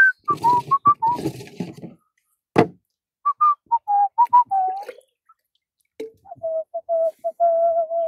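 A person whistling a tune in short, clear single notes, in two phrases with a pause between them. A single sharp knock comes about two and a half seconds in.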